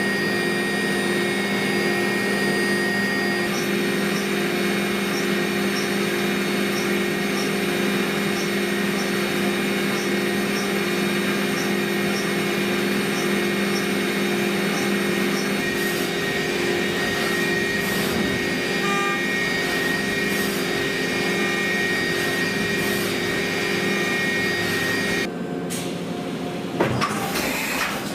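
CNC vertical machining centre milling prehardened mould steel with an end mill: the spindle runs and the cutter works steadily, giving a whine of several fixed tones over a hiss, with a faint regular tick. A little before the end the tones stop abruptly and the sound drops, followed by a few sharp clacks.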